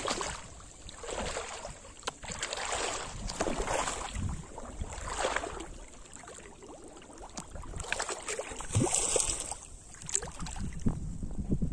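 Pond water splashing and sloshing around a person's legs as they wade, in swells about a second apart, with a louder splash about nine seconds in. Wind rumbles on the microphone.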